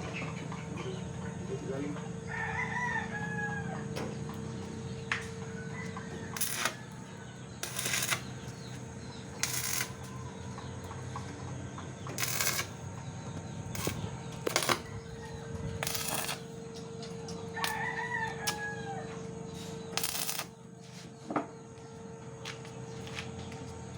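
A rooster crowing twice, about three seconds in and again near the end, over a steady low hum. Several short noise bursts, each about half a second, come in between.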